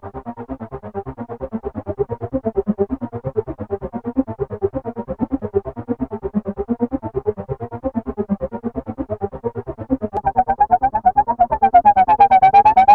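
Behringer Poly D analog synthesizer playing a fast, evenly repeating run of short notes whose pitch rises and falls in a looping pattern. About ten seconds in, the tone opens up: it grows brighter and louder as a knob on the panel is turned.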